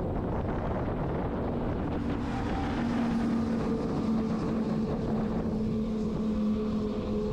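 Wind rushing over the microphone of a moving mountain bike, with a steady low hum joining about two seconds in.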